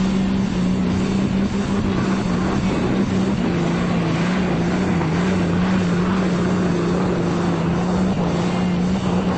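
Diesel pickup truck engine held at steady high revs under heavy load while pulling a weight-transfer sled, its pitch wavering slightly.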